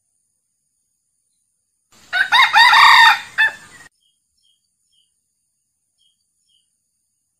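Male red junglefowl crowing once: a short, clipped crow of about two seconds, starting about two seconds in.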